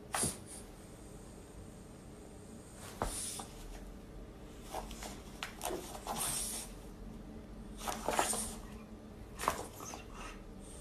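A French bulldog sniffing with its nose down on a jute rug, in short noisy bursts every second or two.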